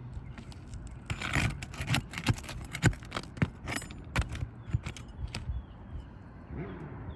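Irregular clicks, knocks and light rattling, packed close together from about a second in and thinning out after about five seconds, over a low steady hum.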